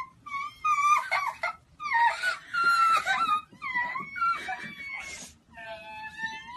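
A young girl's high, wavering wailing sobs in a run of cries with short breaks: tearful crying from joy at being given a kitten.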